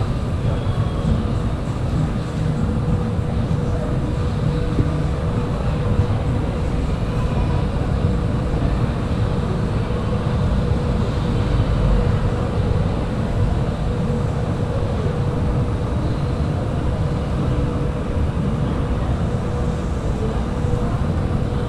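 Steady low rumble of busy city background noise, mostly traffic, with a faint steady hum.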